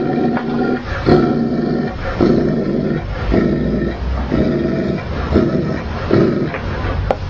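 Tibetan mastiff giving a run of deep, drawn-out barks, about one a second.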